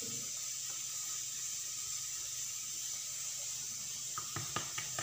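Steady background hiss with a low hum, and a few light taps near the end as hands roll dough on a granite countertop.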